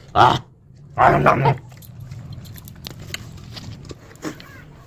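A dog barking twice, a short bark then a longer one about a second in, followed by faint scattered clicks.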